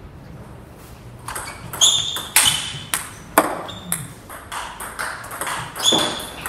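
Table tennis ball bouncing on the table and being hit with bats: a string of sharp, irregularly spaced, ringing clicks. They start about a second in and come loudest near the end.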